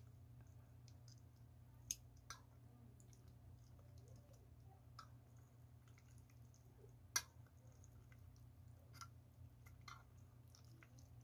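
A metal spoon clicking and scraping against a tin can as wet cat food is scooped out onto a ceramic plate. There are a handful of sharp, separate clicks, the loudest about seven seconds in, over a faint low hum.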